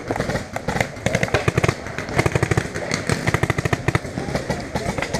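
Paintball markers firing several fast bursts of shots, a rapid popping.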